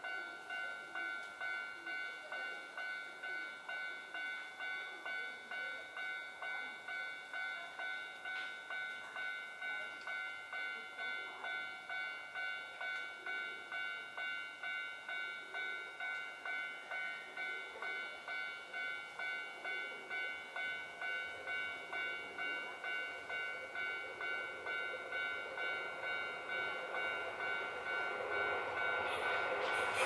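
Japanese level-crossing warning bell ringing its electronic ding-ding steadily, about twice a second, while the crossing is closed. Near the end the rumble of an approaching Keio Inokashira Line train rises under it.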